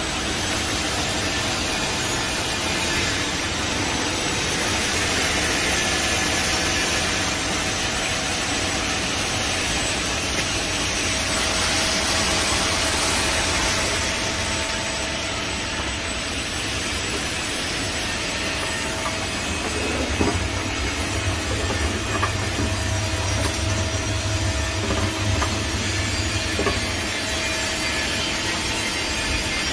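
Takamaz X-15 CNC lathe running a cut: the spindle and power chuck turning with coolant spraying over the tool, a steady machine hum under a hiss of spray that is strongest around the middle. In the second half a deeper hum comes up, with a few sharp clicks.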